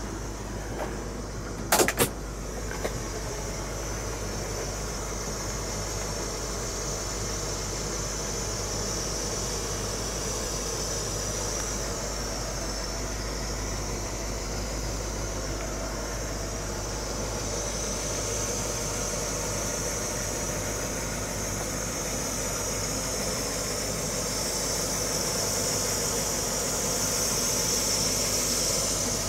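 A 460 V8 in a 1976 Lincoln Continental Mark IV idling steadily, with a high hiss that grows louder near the end. Two sharp clicks about two seconds in.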